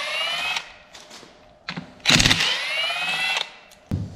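Cordless impact driver backing out bolts around a T5 transmission's input shaft. The first run ends just after the start; about two seconds in, a second run opens with a short burst of rapid hammering, then turns to a rising whine as the bolt spins free. A single clunk follows near the end.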